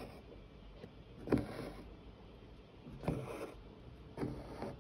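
Hand embroidery needle and single-strand cotton floss being stitched through thin canvas held taut in a wooden hoop. There are three stitches about a second and a half apart, each starting suddenly and trailing off in about half a second.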